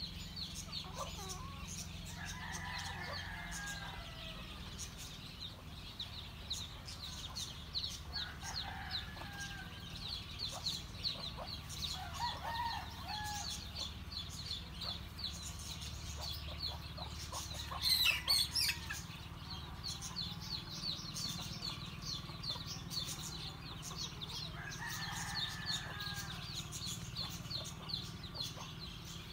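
Chickens clucking and calling every few seconds, over a steady fast high-pitched chirping and a low hum. A brief louder burst comes about eighteen seconds in.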